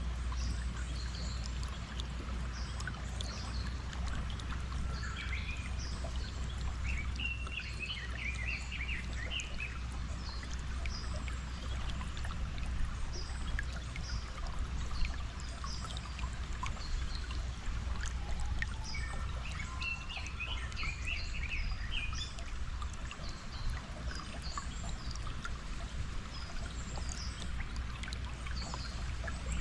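Flowing stream water running steadily with a low rumble, with birds chirping over it in scattered quick calls that come in busier clusters now and then.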